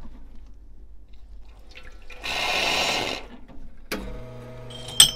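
Water runs or pours briefly for about a second. About a second later a click starts a steady low hum, and near the end comes a sharp, ringing metallic clink, the loudest sound.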